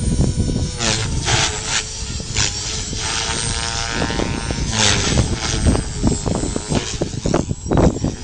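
Wind buffeting the microphone in repeated gusts, with the steady whine of an Align T-Rex Pro radio-controlled helicopter's rotor and motor underneath.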